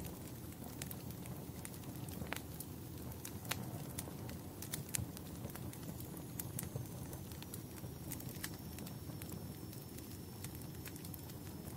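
Wood fire burning in a fireplace: a steady low rumble and hiss with frequent sharp, irregular crackles and pops.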